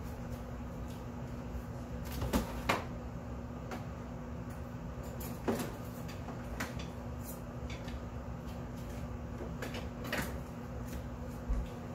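Rummaging through the drawers of a small kitchen drawer cart: scattered knocks and clatter of things being moved about, with sharper clunks a couple of seconds in, about midway and near the end, over a steady low hum.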